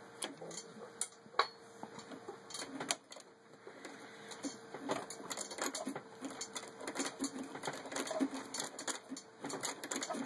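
Antique Singer 119-2 industrial walking-foot sewing machine stitching through two layers of leather a quarter inch thick, clicking with each stitch as the needle and alternating presser feet work. The clicks come sparsely at first, then settle into a steadier run of several a second about halfway in, over a faint steady hum.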